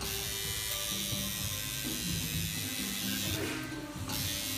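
Electric tattoo machine buzzing steadily as the needle works ink into skin, with instrumental music playing in the background.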